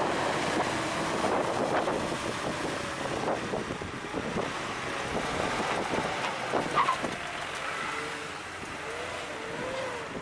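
Wind buffeting the microphone outdoors over the noise of off-road vehicles running, with faint wavering engine tones near the end.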